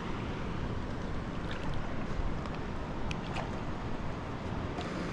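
Steady rush of wind and water around a small boat, with a few faint knocks.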